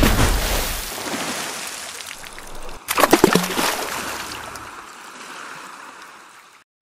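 Water sound effects: splashing and sloshing sea water, with a second splashing surge about three seconds in, each dying away slowly.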